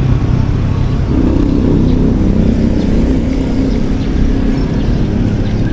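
Road traffic: a motor vehicle's engine running steadily, a loud low hum whose pitch drifts slightly.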